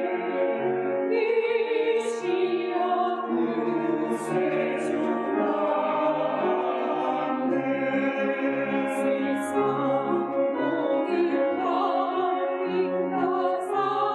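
A church choir sings a hymn in many-voiced harmony on long, held notes. A few short hissing consonants from the singers stand out now and then.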